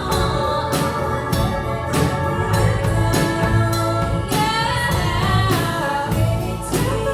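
Live band playing a mid-tempo pop-soul song with a steady beat, a wordless vocal line carrying on between the lyrics.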